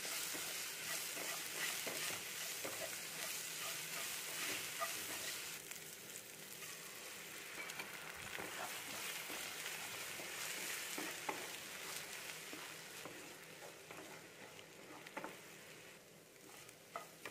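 Chopped onion and tomato masala sizzling in oil in a nonstick pan, with a wooden spatula scraping and tapping the pan as it stirs. Partway through, two eggs go into the pan and are scrambled into the masala as it keeps sizzling.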